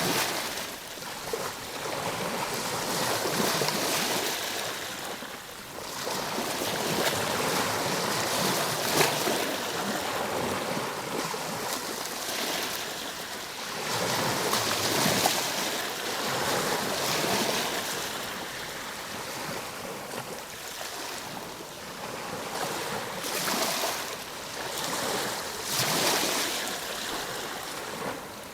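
Ocean surf: waves breaking and washing up, the rush of water swelling and ebbing about every five seconds.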